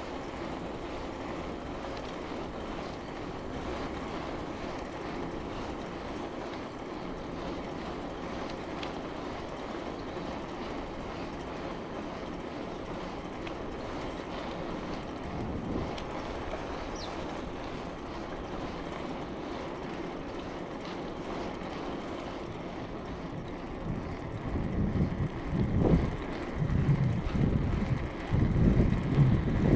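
Steady rolling rumble of a bicycle ride along a road. In the last few seconds, irregular gusts of wind buffet the microphone.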